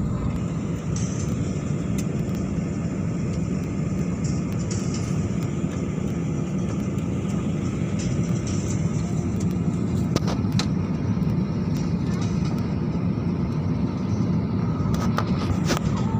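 Steady low rumble inside a jet airliner's cabin as it taxis after landing, with a few faint clicks and knocks.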